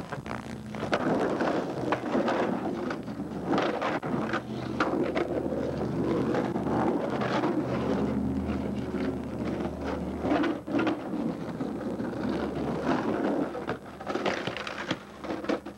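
Skateboard wheels rolling and carving over the concrete of an empty swimming pool: a continuous rumble that swells and fades as the skater moves, broken by sharp clacks of the board and trucks.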